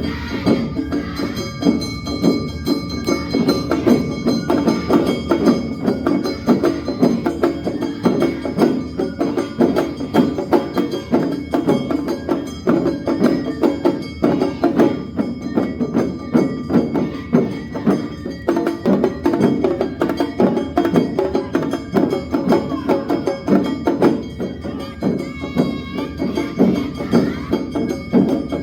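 Awa Odori festival band music in a quick two-beat rhythm: drums and clanging kane hand gongs struck in a steady pulse, with sustained ringing tones above.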